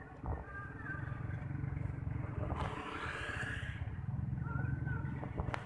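Street traffic of motorcycles and cars: engines running steadily, with a vehicle passing close by about three seconds in.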